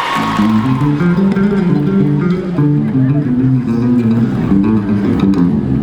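Live band music played loud over a sound system: a bass guitar and guitar line runs through a quick series of notes.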